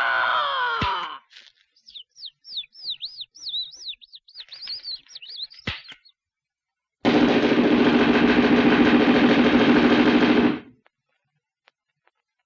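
Cartoon soundtrack effects. A falling whistled slide ends in a click, then comes a run of short, high, bird-like chirps. A loud rapid rattle follows, lasting about three and a half seconds and cutting off suddenly.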